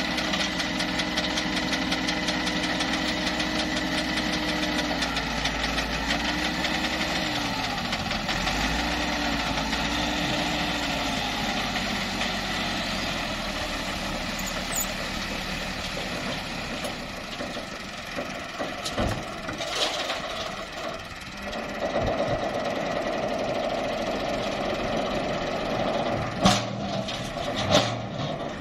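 Massey Ferguson tractor's diesel engine running, working the trolley's hydraulic tipper as it dumps a load of soil. About five seconds in, the engine note wavers up and down for several seconds, and it changes again about two-thirds of the way through. A few sharp knocks come near the end.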